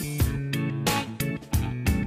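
Background music with a steady, quick beat.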